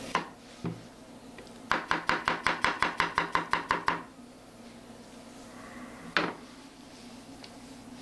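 Kitchen knife chopping onion on a cutting board: a fast, even run of about fourteen strokes, some six a second, lasting about two seconds, with a few single knocks of the knife before and after.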